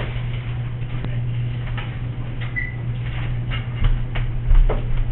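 Light rustling and small knocks from damp paper towels being handled over a clay sculpture on a wooden board, with a couple of dull thumps about four to five seconds in, over a steady low hum.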